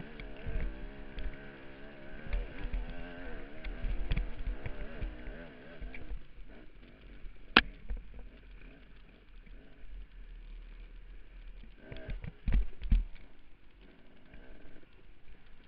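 Dirt bike engine running with its pitch rising and falling as the throttle is worked, heard from a helmet camera, over thumps and knocks from the bike bouncing along the trail. The engine fades quieter about six seconds in, with a sharp knock soon after and heavy thumps near the end.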